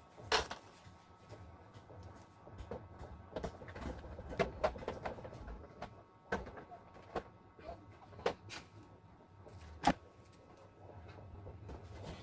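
Handling noises: scattered clicks and light knocks at irregular intervals over a low steady hum. The sharpest come about half a second in and near ten seconds in.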